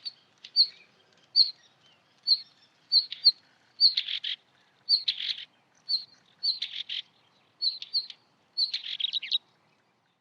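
A songbird singing: a string of short, scratchy, high-pitched phrases, each opening with a sharp note, repeated about once a second and stopping near the end.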